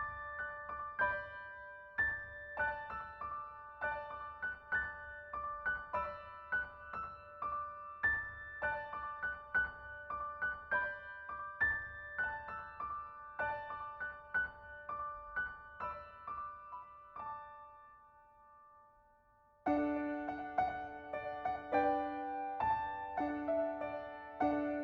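Piano music, notes struck in a steady flowing pattern; it dies away about seventeen seconds in, and after a short pause a new, lower passage begins.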